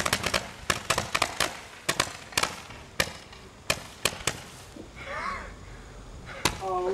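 A bank of Roman candles firing a rapid string of sharp pops as each tube ejects its stars, the shots close together at first and thinning out over about four seconds as the candles burn out, with one last pop near the end.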